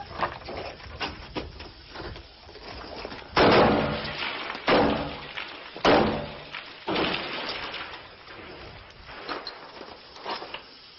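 Three loud gunshots about a second apart, each echoing off concrete walls, with smaller knocks and clicks before and after.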